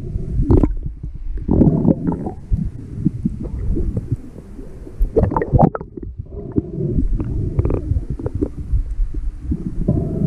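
Muffled underwater sound of water churning around a submerged camera as a snorkeler swims: irregular low rumbling and gurgling with several louder surges.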